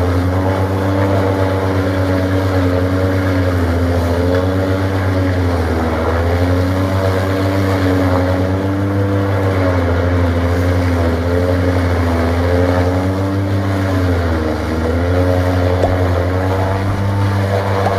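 Valmet tractor engine driving a forage chopper as corn stalks are fed in: a steady, loud engine drone with the chopper's blowing and shredding, its pitch sagging briefly as bundles load the cutter, most deeply about fourteen seconds in.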